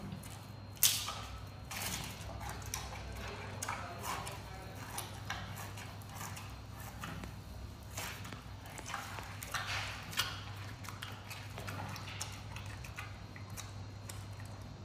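Giant panda biting and chewing bamboo shoots: irregular crisp cracks and crunches, the loudest about a second in and again around ten seconds in.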